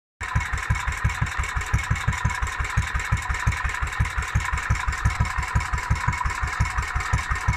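The single-cylinder stationary engine of a 1945 vintage milking machine outfit is running steadily at idle, with an even, rapid beat of low thuds, several a second.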